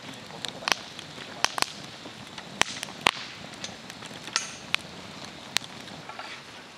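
A fire crackling, with about a dozen sharp, irregular pops over a low hiss.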